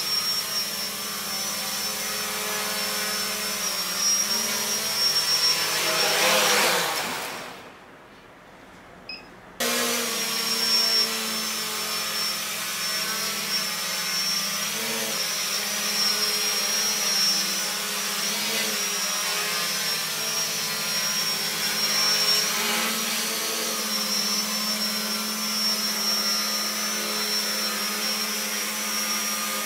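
Homebuilt quadcopter's electric motors and propellers whirring steadily in flight with a constant pitch. About six seconds in the sound swells, then falls away to a much quieter stretch for about two seconds before the whir comes back suddenly.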